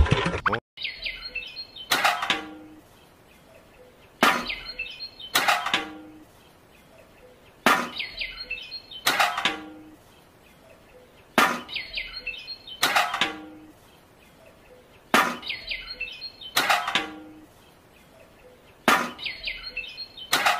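An engine-like running sound cuts off abruptly just under a second in. It is followed by a short looped background track of sharp percussive hits and bird-like chirps, the same phrase repeating about every three and a half seconds.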